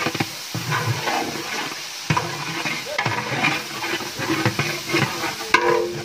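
Long-handled ladle stirring biryani rice in liquid in a large aluminium pot, with repeated scrapes and knocks of the ladle against the metal and the wet rice sloshing over a steady hiss.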